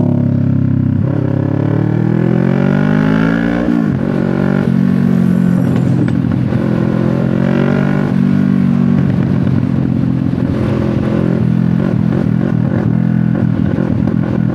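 CF Moto 650NK's parallel-twin engine through an SC Project exhaust, pulling hard with its pitch rising, dropping sharply at a gear change about four seconds in, then accelerating again and cruising. Wind rumbles on the microphone underneath.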